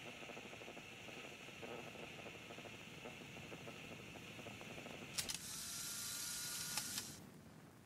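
Hands handling the paper pages of a hardcover planner: a faint, continuous rustle of fingers on paper, then about five seconds in a click and a brief, brighter paper slide lasting under two seconds, ending in another click.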